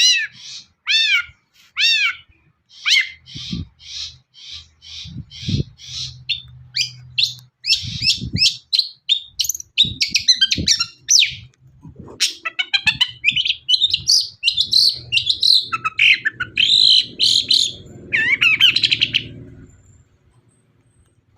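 Long-tailed shrike (cendet) singing a loud, fast, varied song: quick chirps, rapid trills and arched downslurred whistles run almost without a pause, breaking off shortly before the end.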